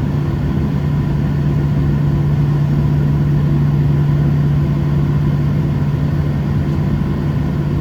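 Boeing 737-700's CFM56-7B engines running steadily at low power, heard inside the cabin as a continuous drone with a strong, steady low hum.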